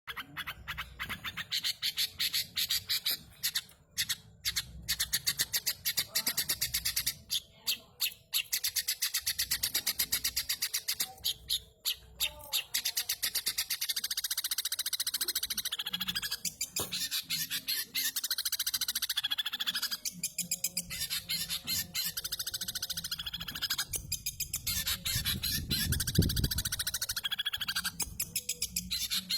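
Long-tailed shrike singing in a fast, unbroken run of high chirps and chatter, its song filled with mimicked Eurasian tree sparrow calls. There are short pauses in the first dozen seconds.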